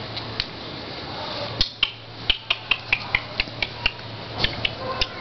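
A puppy's claws clicking and tapping on a ceramic tile floor as it plays, in a quick irregular run of sharp clicks, about three a second, starting about a second and a half in. A steady low hum runs underneath.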